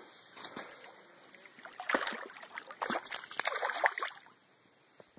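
Water splashing and sloshing close by in a run of irregular bursts lasting about two and a half seconds, as a fish hooked on a fly rod is brought alongside a float tube.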